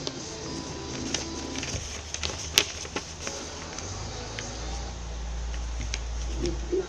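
Origami paper being handled and creased by hand: scattered sharp crackles and taps, the loudest about two and a half seconds in. A low steady hum comes in about four seconds in.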